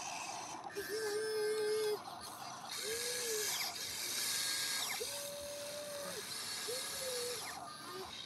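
Electric motors and gearboxes of a toy RC excavator whining as it works its boom and bucket and swings its cab. About five short whines, some steady and some rising and falling in pitch, over a raspy mechanical noise.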